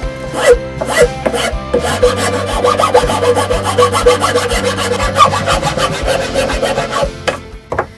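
A hand tool scraping and rasping along the edge of a wooden leg as the edge is rounded over: a few separate strokes, then a quick, even run of strokes that stops near the end.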